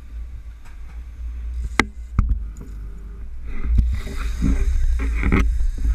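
Low wind rumble on the microphone and water washing around a sportfishing boat in rough seas. Sharp knocks come about two seconds in. The wash grows louder in the second half, with several more knocks.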